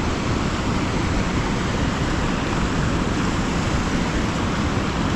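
River rapids rushing steadily, a constant noise of fast-moving water.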